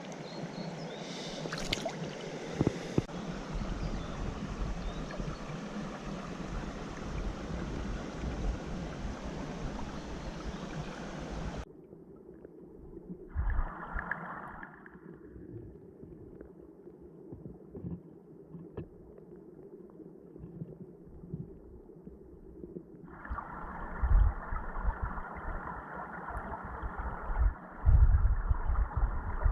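Mountain stream water rushing and gurgling. About twelve seconds in the sound suddenly turns duller and quieter, then swells again, with low thumps in the last few seconds.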